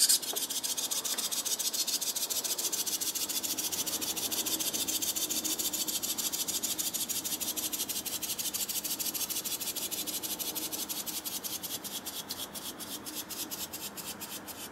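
Wind-up toy fish running in a sink: a click as it is let go, then a fast, even clockwork rattle that slows in the last few seconds as the spring runs down, and stops.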